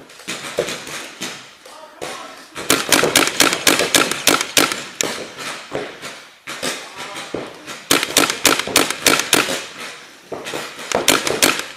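Paintball markers firing in rapid bursts of sharp cracks. The shots are sparse at first, then come in quick runs about two and a half seconds in, around eight seconds in, and again near the end.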